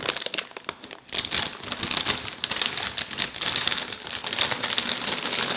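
Plastic snack packaging crinkling as it is handled, a dense run of irregular crackles with a short lull about a second in.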